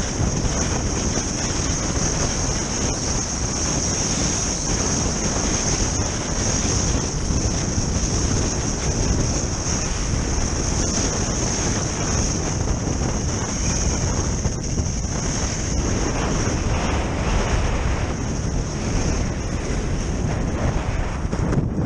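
Wind buffeting an action camera's microphone while kiteskiing fast over snow: a loud, steady, gusting rumble with a constant high hiss above it.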